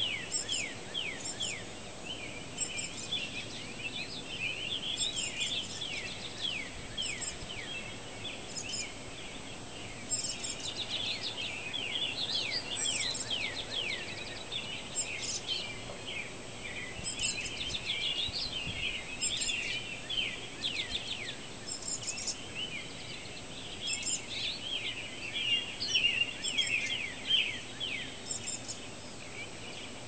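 Pre-dawn chorus of many songbirds singing at once: a dense, continuous mix of quick falling chirps and short high notes repeated every second or two, over a faint steady background hiss.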